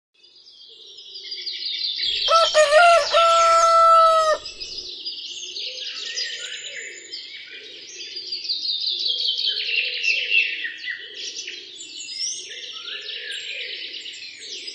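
Songbirds chirping continuously, with a rooster crowing once, loud and held for about two seconds, starting about two seconds in.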